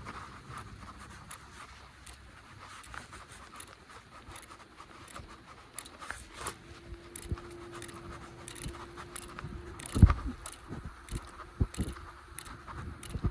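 A wheel rolling over a surface coated in frozen fog (rime ice), giving a faint scraping hiss with small high ticks repeating about every half second. A steady low hum joins in partway through, and a sharp thump comes about ten seconds in.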